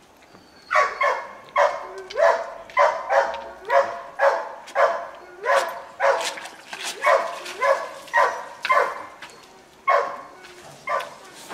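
A dog barking repeatedly, about two barks a second, starting under a second in.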